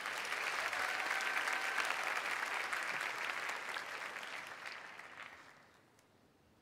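Large theatre audience applauding, swelling in at once and dying away about five and a half seconds in.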